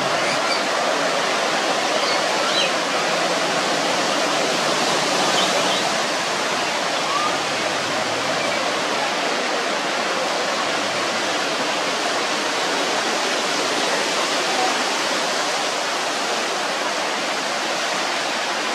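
Hawkesbury River floodwater rushing and churning around submerged trees: a steady, continuous noise of fast-flowing water.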